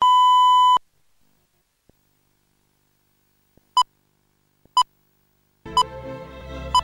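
A steady test tone sounds over colour bars for under a second and cuts off. After silence come short countdown-leader beeps, one a second, four in all. Music starts under the beeps near the end.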